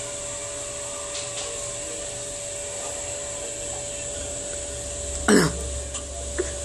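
Washing machine running with a steady hum and hiss, its low rumble growing about four and a half seconds in. A brief loud sound sliding down in pitch cuts across it about five seconds in.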